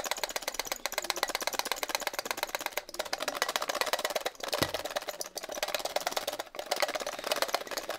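Electrostatic static-grass applicator (flocker) in use: a rapid, even crackling rattle as it is shaken over the baseboard, with a few brief breaks.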